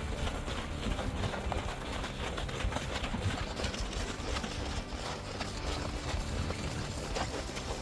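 Horse hooves clip-clopping at a walk, over a steady low rumble.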